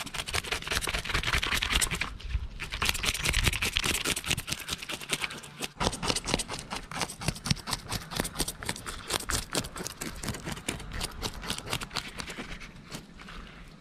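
Scales being scraped off a whole tilapia in rapid, repeated strokes, each stroke a short rasping scrape, with a couple of brief pauses.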